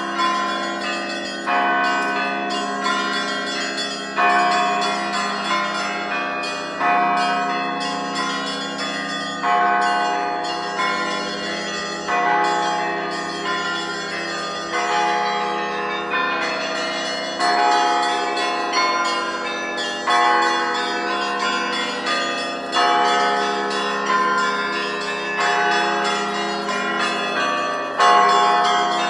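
Russian Orthodox monastery bells pealing: several bells of different pitches struck over and over in a dense, continuous rhythm, with a louder, heavier stroke about every two and a half seconds.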